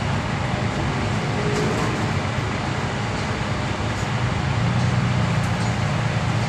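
Steady road-vehicle noise: a low rumble with an even hiss above it, unchanging throughout.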